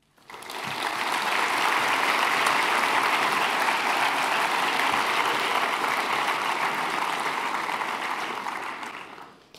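A large audience applauding, the clapping building up within the first second, holding steady, then fading out near the end.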